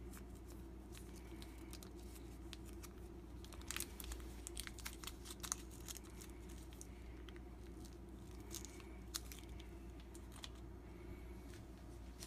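Plastic foil sauce sachet crinkling and crackling as it is squeezed out by hand, in faint scattered crackles that are busiest a few seconds in, over a low steady hum.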